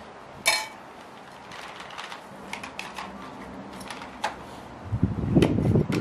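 Henry vacuum cleaner's metal wand and nozzle being handled on a lawn: a sharp metallic clatter about half a second in, then irregular rustling and scraping against the grass near the end.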